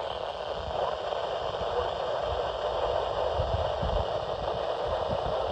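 Steady static hiss from a weather radio receiver, with a faint low rumble underneath.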